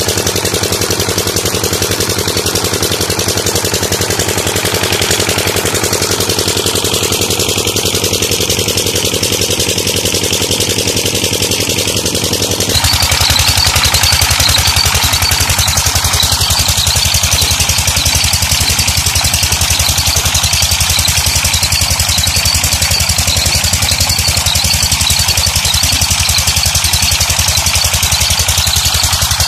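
Petter-type diesel engine driving a tubewell pump, running at a steady beat, with water gushing from the pump outlet into a channel. The engine comes through louder about halfway through.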